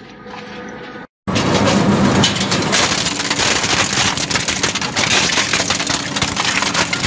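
Twin-shaft shredder's cutter discs turning, a loud, dense crackling clatter with many small clicks. It starts suddenly after a short break about a second in.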